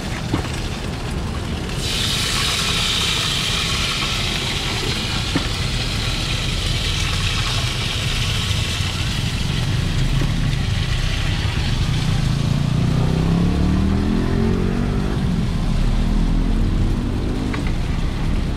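Street traffic with motorbike engines running, one revving past about twelve seconds in, its pitch rising. A hiss sets in sharply about two seconds in and slowly fades: small pancakes sizzling as they fry in hot oil.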